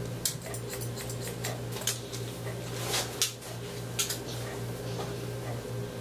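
Hairdressing scissors snipping short hair: a run of crisp, irregularly spaced snips.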